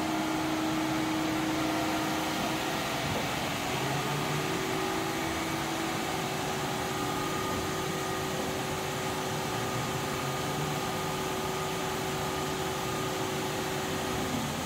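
You Ji YV-1200ATC CNC vertical boring mill running under power: steady machine noise with a few faint whining tones, which shift in pitch about three seconds in.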